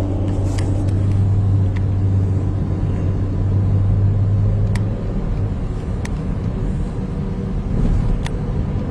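Car engine and road noise heard from inside a moving car: a steady low hum that eases about five seconds in, with a few faint clicks.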